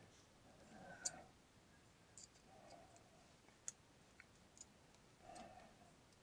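Near silence with a few faint, small clicks as a brass butane refill tip is pressed and fitted into the filling valve of an S.T. Dupont lighter.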